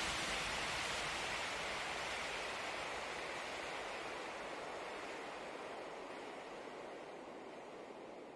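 Steady rushing noise of small waves washing onto a sandy beach, gradually fading away.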